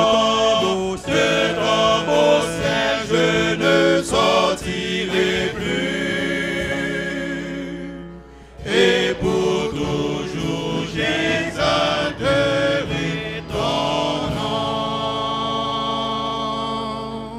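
Church choir singing a hymn in French, in sustained notes with vibrato. The singing drops away briefly about eight seconds in, then resumes and fades out near the end.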